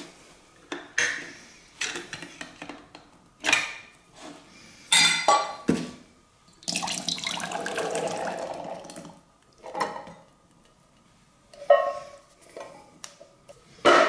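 Metal clinks and knocks as the cut tin-can lid is levered up with a Leatherman can opener. In the middle, chickpeas and their liquid pour from the can into a glass measuring jug for about two and a half seconds, followed by a few knocks of cans being handled.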